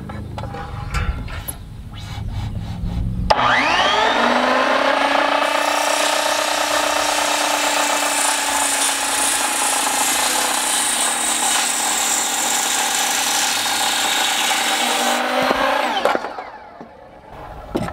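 Large Skilsaw circular saw spinning up about three seconds in, then crosscutting a 6x6 cedar post with a steady, high whine for about twelve seconds, and winding down near the end. Before the saw starts there is a low rumble with a few knocks.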